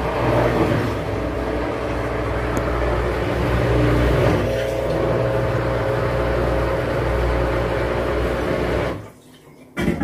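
Midea inverter washing machine's drum motor and drain pump running as it pumps out water and begins to spin: a steady hum with a few held tones, cutting off suddenly about nine seconds in.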